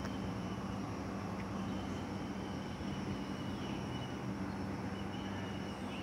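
Steady background rumble with a constant low hum and a faint high tone running through it.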